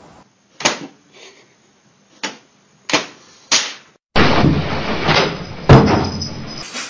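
Four sharp knocks, then a sudden loud clattering crash with one heavy bang just before the end, fading away, as a cat leaps off a monitor toward a window.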